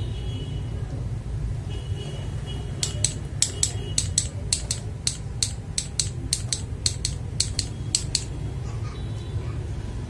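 Unlubed mechanical keyboard switches being pressed repeatedly by finger, about twenty sharp clacks in quick succession from about three seconds in to about eight seconds in. A steady low hum runs underneath.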